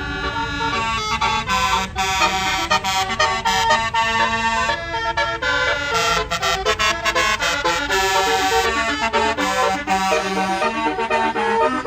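Tour bus's basuri musical air horn playing a tune: a fast run of reedy, sustained notes and chords changing several times a second, over a low rumble.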